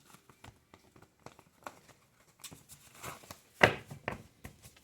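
Tarot cards being handled: scattered soft clicks and rustles, with two sharper taps about three and a half and four seconds in.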